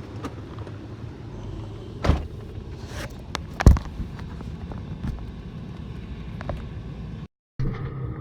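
Pickup truck driving on beach sand in four-wheel drive: a steady low rumble with a few sharp knocks from bumps, the loudest about three and a half seconds in. The sound cuts out for a moment near the end.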